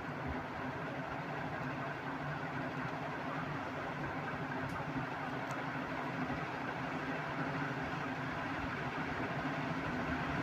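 Sanyo 56-inch industrial ceiling fan running steadily: a constant low motor hum under the even rush of air from the blades.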